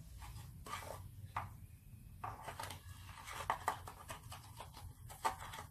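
Kitchen handling noises: a scatter of light clicks, taps and short rustles as containers and utensils are picked up and moved on the counter, over a steady low background hum.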